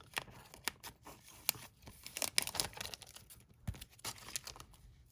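Paper and plastic packaging rustling and crinkling as small paper craft items are handled, a run of irregular small crackles and clicks.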